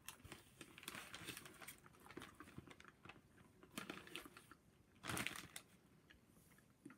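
Faint eating sounds: chewing with small crunches and crinkles, and a louder rustle about five seconds in.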